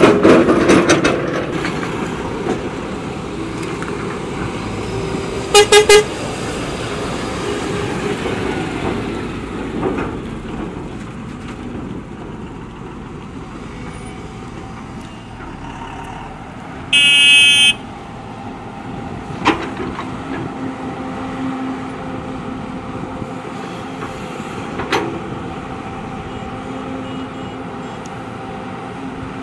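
Diesel engines of a JCB backhoe loader and a JCB tracked excavator running steadily at work. A vehicle horn gives two short toots about six seconds in and a longer, higher toot near 17 seconds. Two sharp knocks come later on.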